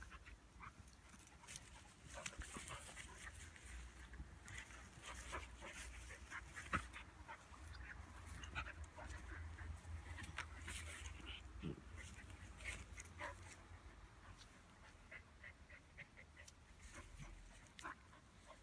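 A small dog and a Romanian shepherd dog play-fighting on grass: faint scuffling, snuffling and mouthing noises, with many short clicks scattered throughout and a low rumble underneath.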